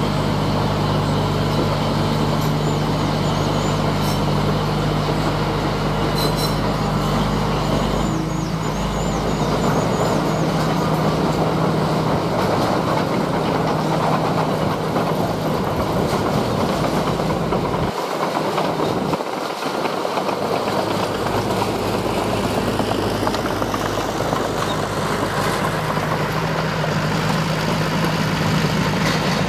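Heavy diesel earthmoving machinery, a bulldozer and dump trucks, running steadily with a low engine drone. A faint high squeal wavers briefly about eight seconds in, and the low hum dips for a moment about two-thirds of the way through.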